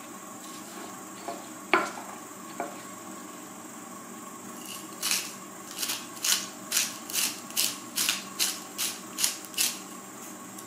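A marble pestle working herbs in a stone mortar, with one sharp stone-on-stone knock about two seconds in. Then a sea-salt grinder is twisted over the mortar: about a dozen short grinding strokes, a little over two a second, stopping shortly before the end.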